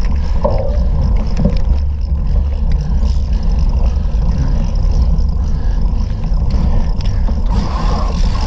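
Steady, heavy wind rumble on the microphone of a camera riding along on a bicycle at race speed.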